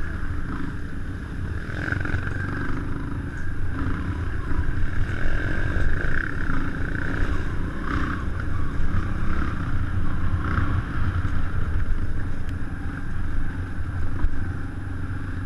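Kawasaki KLX 150's single-cylinder four-stroke engine running under a rider on a dirt trail, its revs rising and falling as the throttle is worked.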